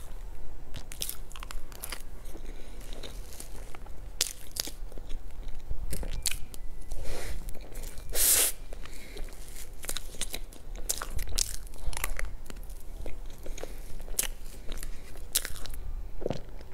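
Close-up eating sounds of someone spooning soft layered cake from a plastic container and chewing it: many short sharp mouth clicks and spoon taps, with one louder crinkly rustle a little past the middle.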